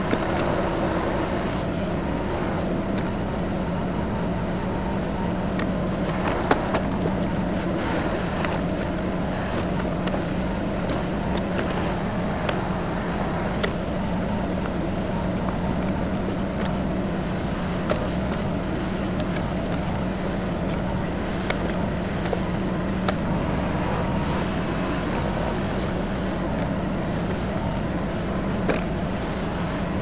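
TYM 2515H compact tractor's three-cylinder diesel engine running at a steady speed, with a few faint clicks and knocks now and then.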